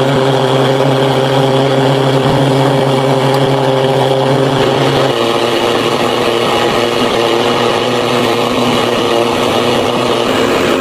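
A motor-driven machine running steadily with a loud hiss over a steady hum; the deepest part of the hum drops out about five seconds in.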